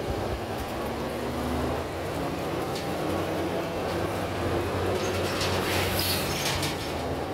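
Interior of a moving city transit bus: the steady drone of the bus's engine and road noise as it drives along, with some light clatter near the end.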